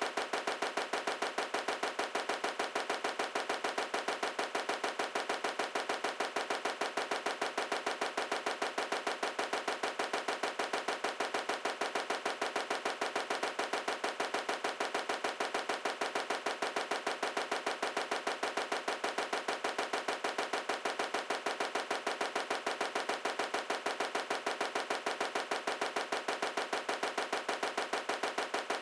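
A split-second fragment of the theme-song audio looped over and over without change, making a rapid, evenly repeating stutter like a stuck CD skip.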